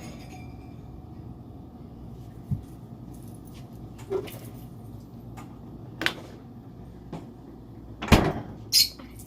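Scattered light knocks and clicks of things being handled, then a louder thump about eight seconds in like a door being shut, over a steady low hum.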